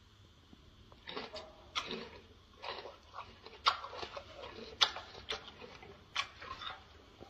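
Gorilla chewing a mouthful of raw bell pepper: irregular wet crunches and clicks, a few of them sharp and loud, starting about a second in.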